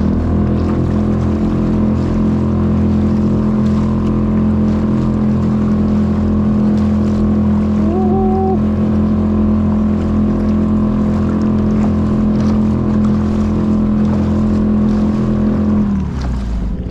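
Suzuki 2.5 hp single-cylinder four-stroke outboard running steadily at speed, pushing a small kayak with water rushing along the hull. About a second before the end the engine note drops as the throttle is eased off.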